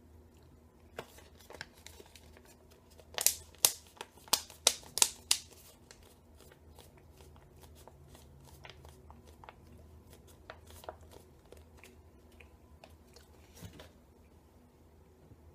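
Crinkling and rustling of a foil-lined loose leaf chewing tobacco pouch as a pinch is pulled out and the bag is handled, with a cluster of loud, sharp crackles about three to five seconds in and lighter rustles after.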